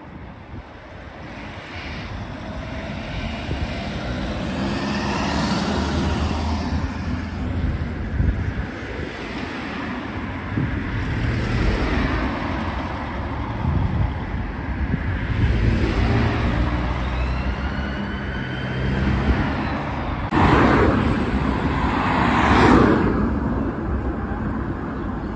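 Road traffic: vehicles driving by with engine hum and tyre noise, growing louder over the first few seconds. Near the end one vehicle passes close, the loudest moment.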